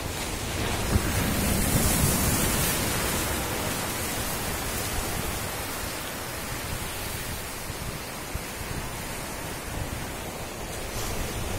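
Sea surf breaking and washing over a rocky boulder shore: a steady rushing noise that swells about two seconds in.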